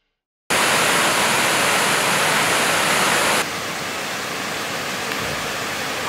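Steady rush of falling water from a waterfall, starting abruptly about half a second in and stepping down slightly in loudness a little past three seconds in.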